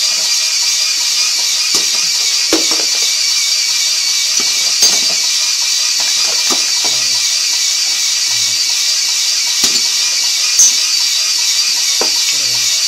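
Homemade belt-conveyor magnetic separator running: its small motor gives a steady high whine and hiss, with occasional light clicks and clinks.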